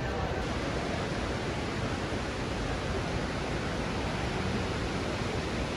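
Steady, even rushing noise with no change in level.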